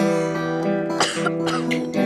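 Guitar music, likely acoustic: chords strummed and left to ring, with a new chord struck about halfway through.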